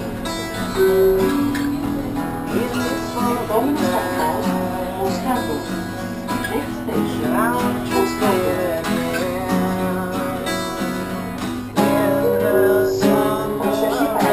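Two acoustic guitars playing a song together, strummed chords under picked notes, played live inside a train carriage. About three-quarters of the way through the playing gets suddenly louder.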